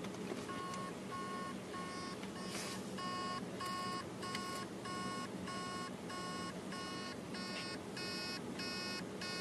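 Hard drive beeping, short even beeps about twice a second, as its spindle motor tries and fails to spin up the platters, most likely because the heads are stuck on a platter.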